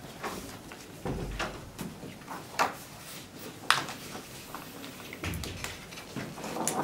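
Scattered sharp knocks and taps, about six of them at uneven intervals, with a dull thud about a second in and another about five seconds in.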